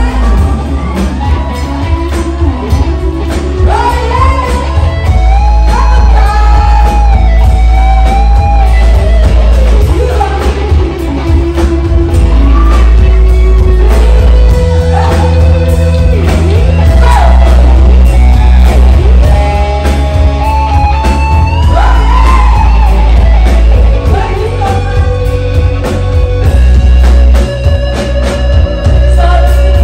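A live rock band plays a song with electric guitars, bass guitar, drums and keyboard, and a woman sings lead over it, loud through the PA in a large hall.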